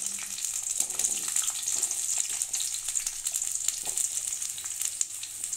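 Small onions (shallots) sizzling as they drop into hot groundnut oil in a stainless-steel kadai: a steady high hiss full of fine crackles, with a few light knocks.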